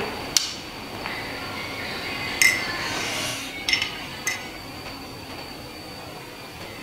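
Glassware and utensils clinking: four sharp clinks, the loudest about two and a half seconds in, ringing briefly.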